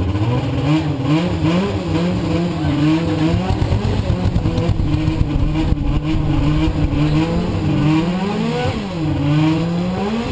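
Formula SAE race car engine revved from idle during a static noise test, its pitch wavering up and down and dropping sharply twice near the end.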